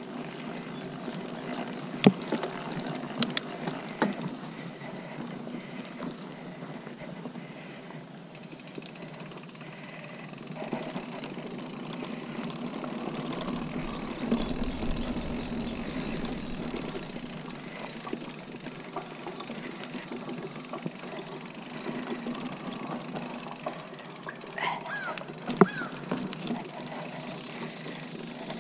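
Mountain bike rolling along a dirt singletrack: steady tyre and drivetrain rattle, with a few sharp knocks about two seconds in, again around three to four seconds in, and near the end.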